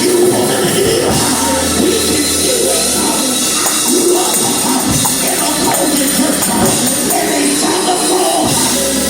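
Live gospel church music with tambourine and singing over sustained bass notes.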